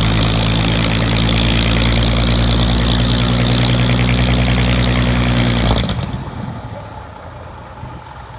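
Vintage WWII fighter's V12 piston engine idling steadily, then shut down about six seconds in. The sound falls to a much quieter low rumble as the propeller winds down.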